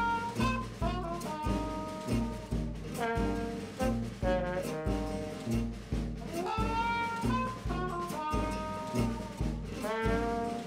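Background music: an up-tempo jazz tune with a brass melody over a steady beat.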